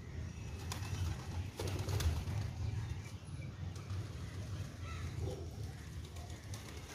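A flock of feral pigeons cooing in a low, continuous murmur while feeding, with a few light clicks in the first two seconds.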